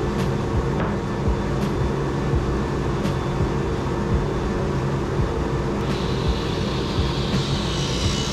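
A woodworking machine running steadily with a motor hum, and a higher hiss joining about six seconds in.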